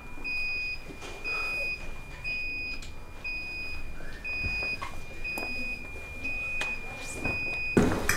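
A high electronic beep repeating about once a second, each beep about half a second long, with a fainter tone between beeps. Near the end, dishes and cutlery start clattering.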